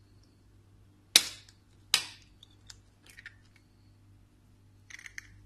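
An egg cracked against the rim of a bowl: two sharp knocks about a second in, under a second apart. A few lighter clicks follow as the shell is broken open.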